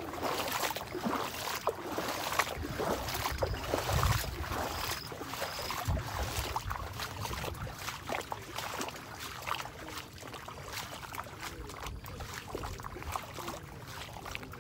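Footsteps and rustling through wet grass on flooded ground, with faint splashing of water. Low wind gusts buffet the microphone about four and six seconds in, and the sound eases off in the second half.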